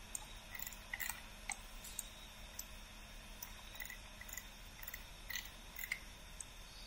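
Faint, irregular clicks from a computer mouse being used to zoom and rotate a 3D model on screen, about a dozen in all, over a steady background hiss.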